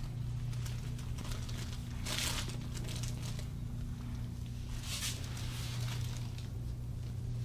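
Rustling and crinkling of cloth and paper on a treatment table as a patient is worked on, with two louder short swishes about two and five seconds in, over a steady low hum.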